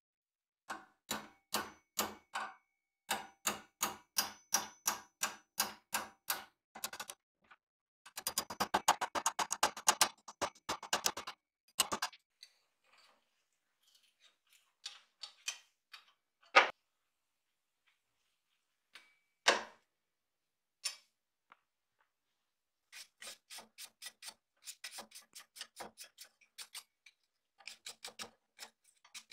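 Small hammer tapping a punch and the old wooden handle on a rusty sword's tang clamped in a steel bench vise, knocking the handle off. The taps come about three a second, with a fast flurry of taps in the middle and a couple of single louder knocks, then steady taps again near the end.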